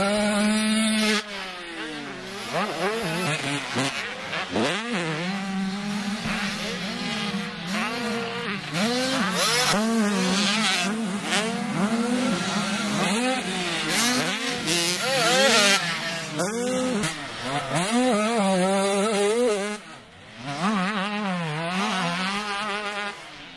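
Dirt bike engines revving hard on a motocross track, the pitch climbing and falling again and again with the throttle. The sound dips briefly near the end.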